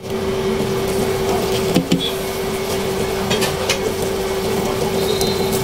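Steady hum of an electric cooker's cooling fan, with one constant tone held throughout, under a pan of simmering sauce. A few light clicks fall about two and three and a half seconds in.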